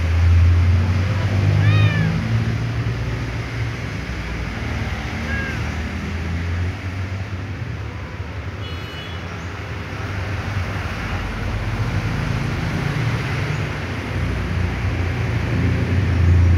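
A cat meowing: two short meows, the first about two seconds in and a fainter one a few seconds later, over a steady low hum.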